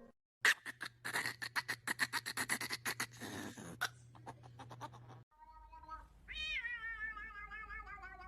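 A rapid run of sharp clicks or taps for about three seconds, then, after a short pause, a cat's long drawn-out wavering meow that slowly falls in pitch.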